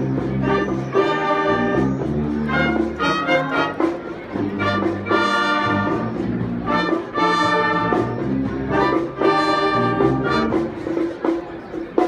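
Wind band playing: brass-led chords swell in phrases about every two seconds over low bass notes.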